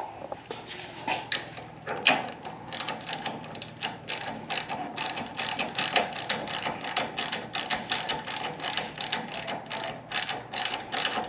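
Hand ratchet wrench clicking steadily, a few clicks a second, as it tightens the bolts of a side-mirror clamp bracket.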